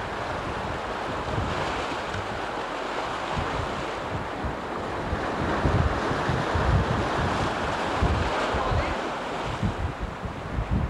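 Sea surf washing and breaking over breakwater rocks, a steady rushing wash, with wind buffeting the microphone in irregular low rumbles.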